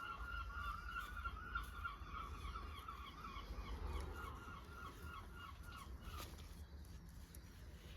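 Birds calling in a fast run of short, repeated pitched notes that fades out about six seconds in, over a steady low rumble.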